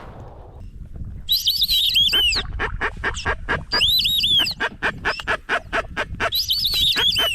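Whistling ducks calling: three bouts of high, arching whistled notes, like white-faced whistling ducks, over a run of rapid clicks.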